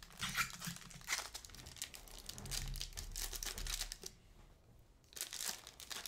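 Hockey trading cards and their packaging crinkling and rustling as they are handled, in quick irregular crackles that pause briefly about four seconds in.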